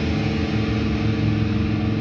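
Electric guitar played through distortion, with notes and chords sustaining and overlapping.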